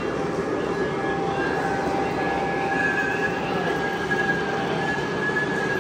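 Model train running on a layout track: a steady rolling rumble with a thin, high, steady whine.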